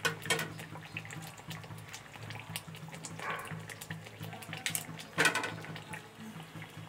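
Thin aloo-baingan curry gravy simmering in a kadhai, with wet bubbling and sloshing. A steel spatula stirs through the liquid near the end, the loudest splash coming about five seconds in.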